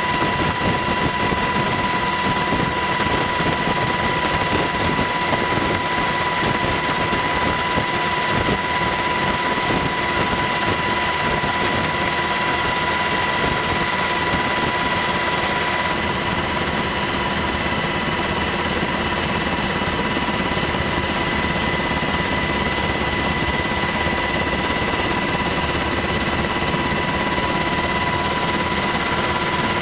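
Helicopter noise: a steady engine and rotor drone with a steady high whine over it.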